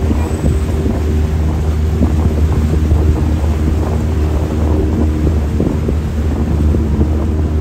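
Small canal tour boat's engine running steadily, a constant low drone, with wind noise on the microphone over it.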